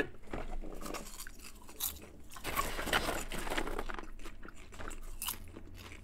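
Two people chewing mouthfuls of butter microwave popcorn: irregular, crisp crunches close to the microphone.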